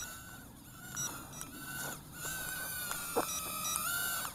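Eachine E016H mini quadcopter's motors whining as it hovers and manoeuvres, the pitch shifting with throttle and the whine getting louder about halfway through. A few short high beeps sound during it.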